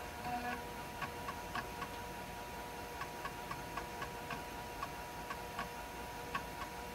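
USB external 3.5-inch HD floppy drive accessing a diskette: its head steps in a regular run of short ticks, about four a second, over a steady faint whine.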